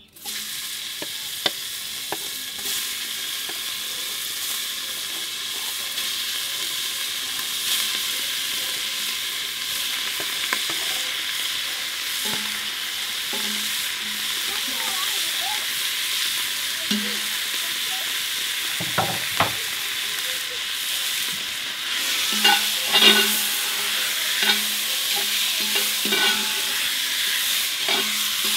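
Cubed meat sizzling as it drops into hot oil in a cast-iron pot: a steady frying hiss that starts suddenly, with scattered pops. Later a utensil stirs the meat, and the sizzle grows louder with clicks against the pot.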